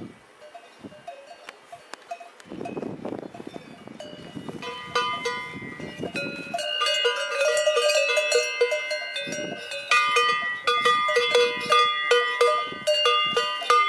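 Several cowbells on grazing cattle clanking irregularly, sparse at first and then louder and busier from about a third of the way in.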